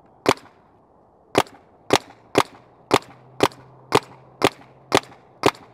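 Paintball marker firing about ten shots: a single pop, then after a second a steady string at about two shots a second.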